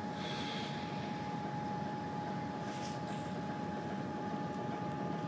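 Diesel locomotive engine running steadily: a low rumble with a constant whine over it.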